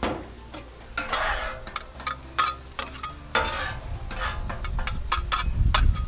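Metal spatulas scraping and clacking on a steel flat top griddle as diced onions are pushed around and flattened in butter, over the steady sizzle of onions and shaved ribeye frying.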